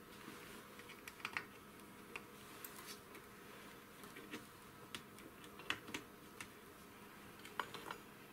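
Scattered faint clicks and light scrapes of a small screwdriver tip against the metal housing of an aircraft altitude controller as the tip works around the seal groove. There are about a dozen irregular ticks, a few a little sharper.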